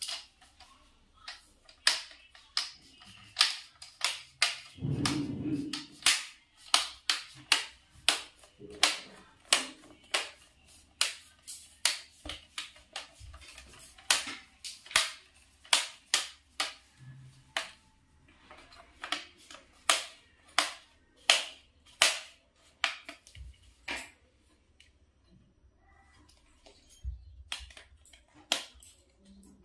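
A long run of sharp plastic clicks and snaps, about one or two a second, from the plastic bezel, hinges and hinge cover of a Lenovo IdeaPad 320 laptop display assembly being worked by hand; the clicks thin out near the end.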